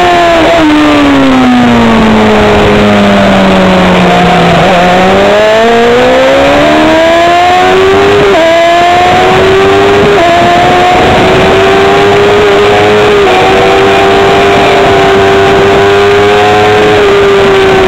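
Bimota YB4ei racing motorcycle's Yamaha inline-four engine on track: the engine note falls steadily for the first four seconds as the rider comes off the throttle, then climbs hard under acceleration. About eight seconds in there is a sharp drop in pitch at a gear change, after which the engine holds high revs with a couple of smaller shifts.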